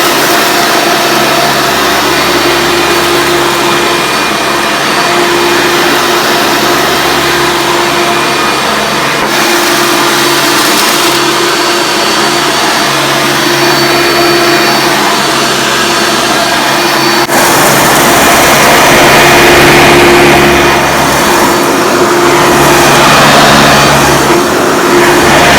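The 1996 Hoover Preferred Elite upright vacuum's 7.2-amp direct-air motor runs steadily while it cleans carpet, its hum wavering on and off every second or two. About two thirds of the way in it suddenly gets louder.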